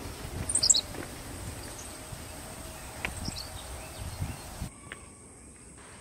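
Rural outdoor ambience: a few short bird chirps in the first second and a steady high insect drone, with scattered low thumps. The sound turns quieter a little before the end.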